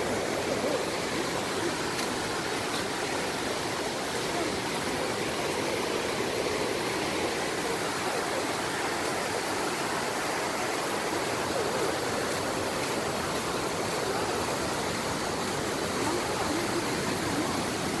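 Steady rush of a waterfall, river water cascading over broad rock shelves.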